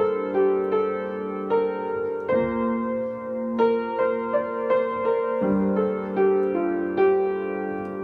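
Solo upright piano playing a slow piece: sustained chords with single notes struck over them, a new chord every second or two.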